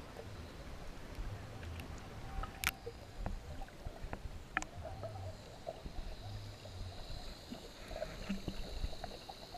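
Soft water sloshing and lapping, with a few light splashes from a dog paddling in shallow water.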